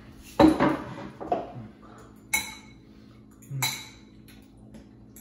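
A green ceramic bowl knocks down onto a wooden table about half a second in, followed by a smaller knock. A spoon then clinks sharply against the bowl twice, each clink ringing briefly.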